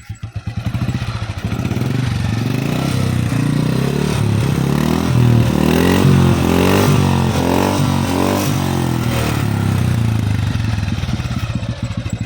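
1980 Royal Enfield Bullet 350's single-cylinder engine with its stock silencer, idling with an even thump, then revved up and down several times before easing back toward idle near the end.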